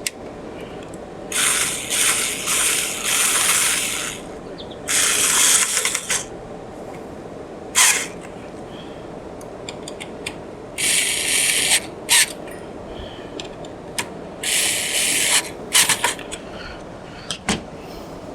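Cordless drill driving in the screws of a low-profile CPU cooler in short bursts, about eight of them, each a second or less, with pauses between.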